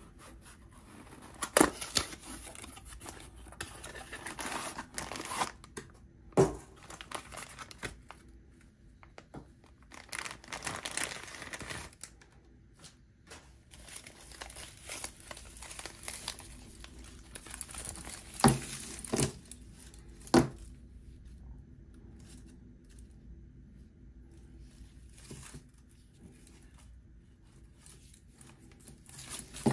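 Cardboard box opened and a bundle of bungee cords with hooks and paper tags unpacked by hand: stretches of rustling and crinkling of cardboard and paper, with a few sharp clicks, three of them close together about two-thirds of the way through.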